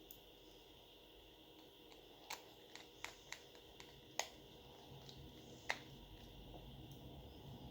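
Quiet, sharp little clicks and taps from handling smartphone parts and repair tools during reassembly: about seven irregular clicks over four seconds, the loudest about four seconds in and near six seconds.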